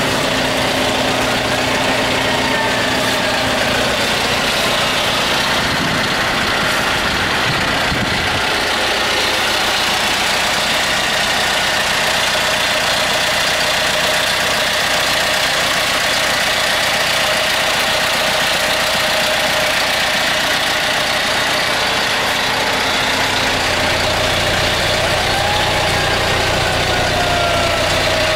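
Diesel engine of a John Deere 5125ML tractor idling steadily, its low note shifting slightly a couple of times.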